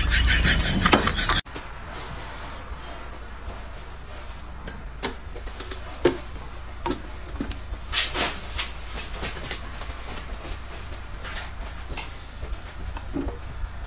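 Scattered light knocks and clinks of large stainless-steel dome covers being handled and set down over plates, over a steady low hum. A louder sound at the start cuts off abruptly about a second and a half in.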